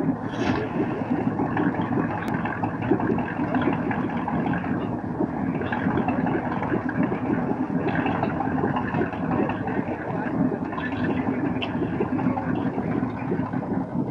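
Inboard engine of a 1966 Century Resorter 17, a 238 Gray Marine, running steadily at low speed.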